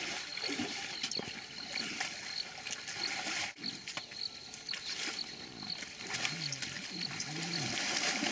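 White rhinoceroses at a mud wallow giving low calls that rise and fall in pitch, two of them close together late on. A steady high chirping of insects pulses underneath.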